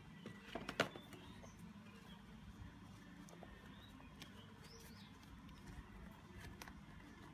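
Faint handling noise of a sneaker and its shoebox: a few sharp taps about a second in as the insole is set back in the box, then light scattered clicks and rustles as hands work the knit upper and laces of a Jordan 1 Flyknit.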